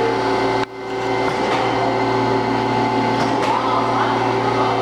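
A Chevalier FSG-1640AD surface grinder running: a steady hum from its 5 hp spindle motor and wheel, with several unchanging tones. The sound dips sharply for an instant about two-thirds of a second in, then carries on.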